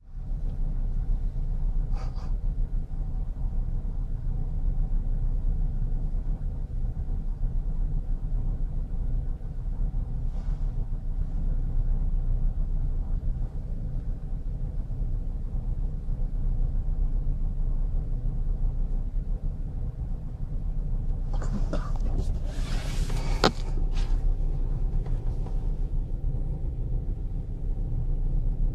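Steady low rumble of wind on the microphone and the ship's machinery on a bulk carrier's deck, with a faint steady hum above it. A short burst of noise with a sharp click comes about three-quarters of the way through.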